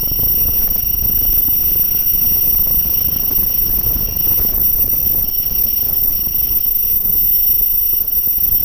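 Gemstone CNC machine running steadily: a constant high whine over a low rumble.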